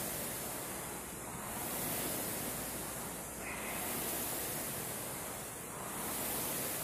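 Steady rushing hiss of background noise that swells and eases about every two seconds. No distinct hand or foot impacts stand out.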